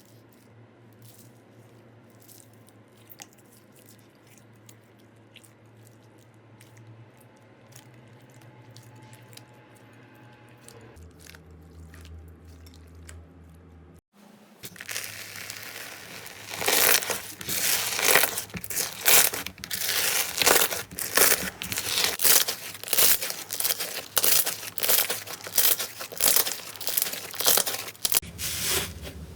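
Slime being handled: faint sticky clicks at first, then, after a cut about halfway in, loud crackling and crunching squeezes repeating about twice a second.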